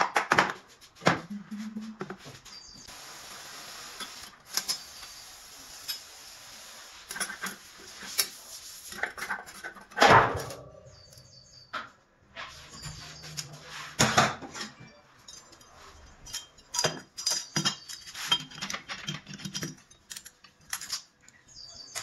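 Metal transmission parts clinking and clattering as clutch plates and hub parts are handled and fitted into a 6T41 automatic transmission's aluminium case, with scattered light clicks and a louder knock about ten seconds in and another around fourteen seconds.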